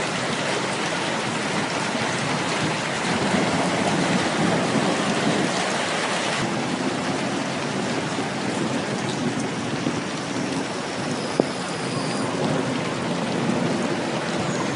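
Heavy rain falling steadily as a dense hiss, a little duller from about halfway through. One sharp click near the end.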